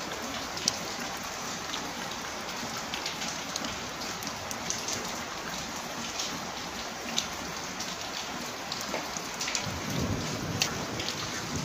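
Steady rain falling, with many small sharp drop ticks. A low rumble of thunder builds over the last two seconds.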